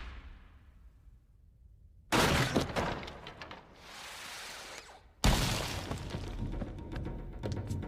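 Two sudden crashes of something shattering, about two seconds in and again just after five seconds, each fading off. Film score runs under the second half.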